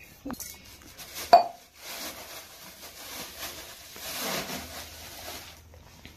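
A sharp clink of a steel tumbler with a brief ring about a second in, then a plastic bag crinkling and rustling for a few seconds.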